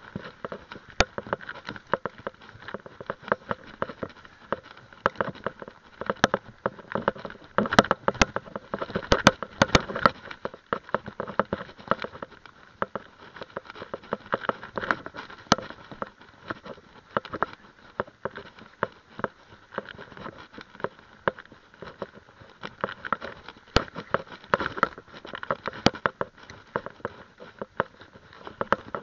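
Mountain bike riding a rough dirt and gravel trail, heard through a handlebar-mounted camera: constant irregular rattling and knocking as the bike jolts over bumps, with tyre crunch underneath. The knocking is densest about eight seconds in and again near the end.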